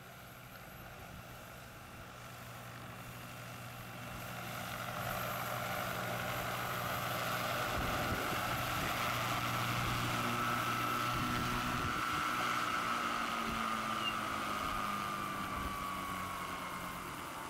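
Large electric radio-controlled Hughes 500 scale model helicopter, with a 2.65 m rotor, running: a steady electric-motor whine over the beat and rush of the rotor. It grows louder through the middle, and in the last few seconds the whine slowly falls in pitch as the rotor winds down after landing.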